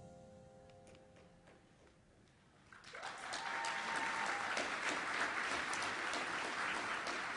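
Soft closing music fades away, and about three seconds in an audience breaks into applause, a dense clapping that carries on steadily.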